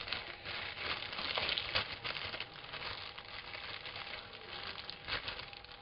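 Packaging rustling and crinkling as small items are rummaged through in a box, with scattered light crackles.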